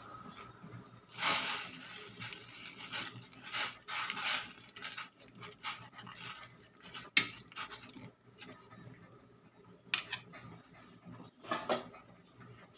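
Kitchen cookware and utensils being handled: scraping and rubbing noises, then a couple of sharp clicks or knocks several seconds apart.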